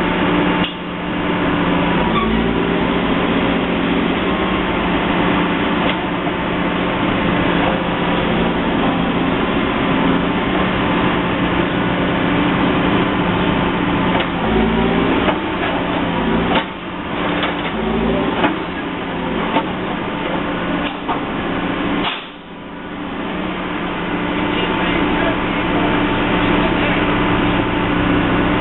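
Heavy construction machinery running steadily at the roadworks, with several sharp knocks and clanks, the loudest about 22 seconds in.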